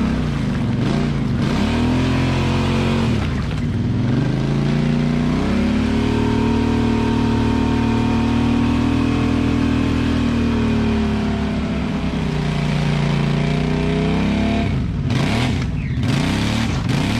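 ATV engine revving in long pulls while the quad is stuck deep in mud: the engine note climbs and is held high for several seconds, drops, then rises and falls again near the end.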